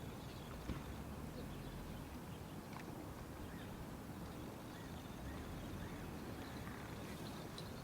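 Outdoor ambience of a low, steady wind rumble with faint, scattered bird chirps.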